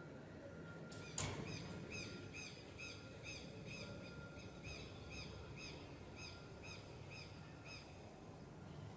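A bird calling a long run of short, evenly repeated notes, about three a second, which stops about a second before the end. A sharp click about a second in, just as the calling starts, is the loudest sound.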